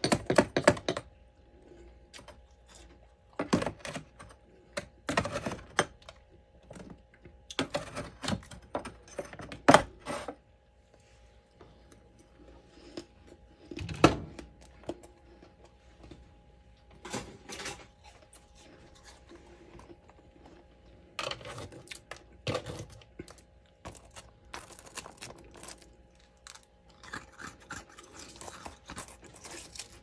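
Crisp crunching and clicking of freezer frost and ice chunks, in about a dozen short clusters with pauses between. The loudest snaps come about ten and fourteen seconds in.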